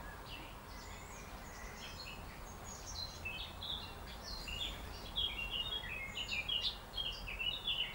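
Outdoor ambience of small birds chirping: many short, high chirps that get busier from about three seconds in, over a faint steady low rumble.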